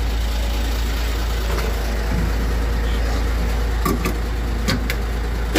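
Steady low rumble of a large truck's engine idling, with a few light clicks about four to five seconds in.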